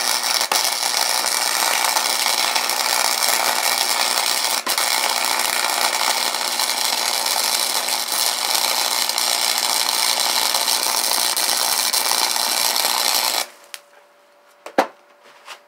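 Flux-core wire welder arc running one continuous bead of about thirteen seconds on a steel go-kart spindle, a steady sizzling hiss that stops suddenly near the end. The weld builds up the spindle where a failed wheel bearing ground into it.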